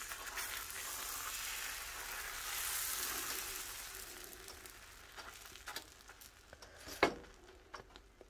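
Thin dosa batter sizzling on a hot cast-iron tawa as a ladle spreads it outward in circles. The hiss fades after about four seconds, leaving a few light scrapes and taps, with one sharper knock of the ladle about seven seconds in.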